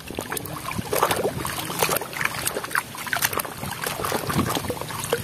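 Muddy water sloshing and splashing in a basin as toys are scrubbed with a brush under the water, with irregular splashes and small knocks.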